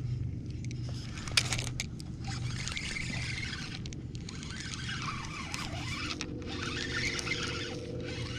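A spinning reel being cranked, whirring in two long stretches as line is wound in, after a sharp click or two about a second and a half in. A steady low hum lies underneath.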